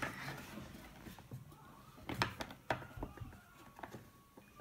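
A few soft clicks and taps of hard plastic toy parts being handled, two close together about two seconds in and single ones before and after, over quiet room noise.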